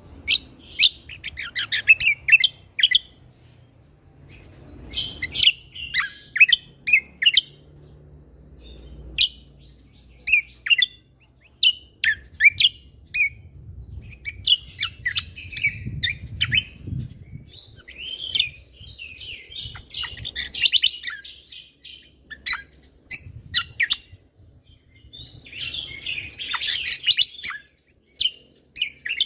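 Cucak kombo (kecial kombok) songbird singing persistently: sharp, rapid chirps and trilled phrases in quick clusters separated by short pauses, the loud 'tembakan' shot-like bursts used as tutor song for other songbirds.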